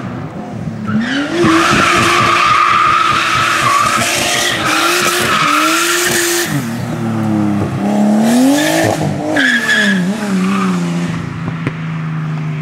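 Nissan Skyline R32 drifting through a bend: the tyres squeal for several seconds while the engine holds high revs. The engine then revs up and down as the car straightens and pulls away, its note settling lower and steadier near the end.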